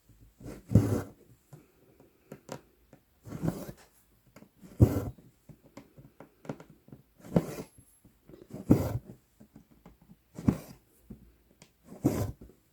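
Cross-stitch needle and floss being worked through 11-count Aida fabric: short rustling pulls of thread through the cloth, one every second or two, with small ticks and pops of the needle in between.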